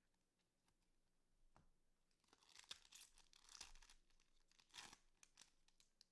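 Faint crinkling and tearing of a trading-card pack wrapper being ripped open by hand. It starts about two seconds in, with a few louder rips.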